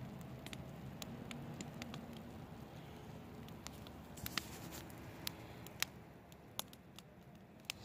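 Campfire of large moss-covered logs burning, with scattered sharp crackles and pops over a low steady hiss.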